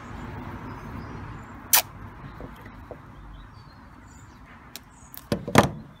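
Handling noises from wiring work: a single sharp click about two seconds in, then a quick cluster of crackling snaps near the end as red PVC insulating tape is pulled off the roll, over a steady low outdoor background hiss.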